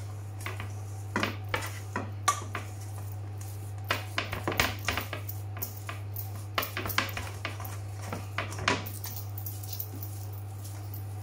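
Stuffing being mixed and scooped by hand in a stainless steel mixing bowl: irregular clinks, knocks and scrapes as the bowl shifts and a metal chain bracelet taps against the steel, over a steady low hum.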